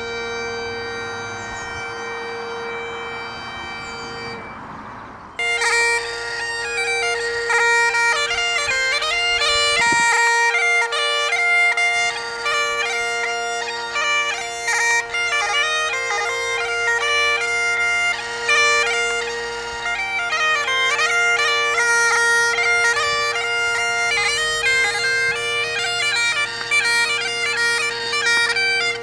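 Highland bagpipes playing: a steady drone under the chanter's melody. About five seconds in the held notes fade and break off, and a louder, busier tune starts at once.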